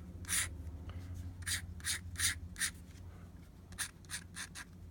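Fountain pen nib scratching across paper in about a dozen short, quick strokes, grouped in two runs with a short pause between them.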